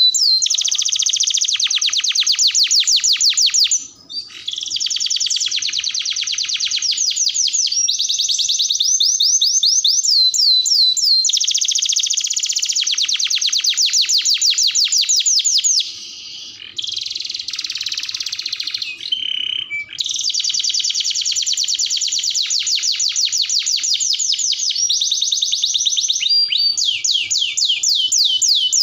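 Domestic canary singing a long, continuous song of fast trills and rolls of repeated high notes, broken by a short pause about four seconds in and a softer passage past the middle.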